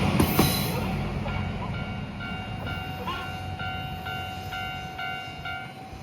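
A Matsuura Railway diesel railcar rumbles away from a Japanese level crossing, fading steadily. The crossing's electronic warning bell rings about twice a second and stops near the end, as the train clears the crossing.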